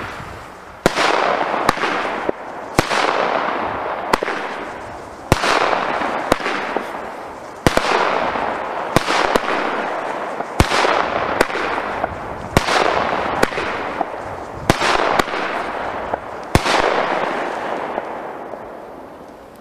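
Weco 'Epic' nine-shot firework cake firing: sharp shots about every one to two seconds, each followed by a hiss that fades away over a second or so as the shells burst into gold sparks.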